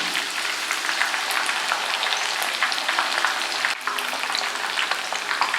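Masala-coated seer fish (vanjaram) pieces frying in hot oil in a pan: a steady, dense crackling sizzle.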